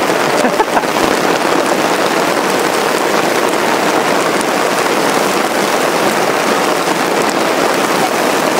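Heavy rain pouring down in a steady, loud hiss.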